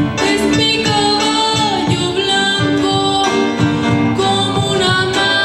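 A song with a singer's held, sliding notes over guitar and band accompaniment, with a steady beat.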